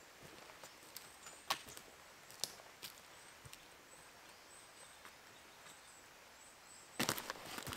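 Footsteps on a conifer forest floor of needles, moss and dead twigs: a few faint snaps of twigs underfoot, then a burst of close, louder steps on dry twigs near the end. A faint, very high, thin tone comes and goes in the background.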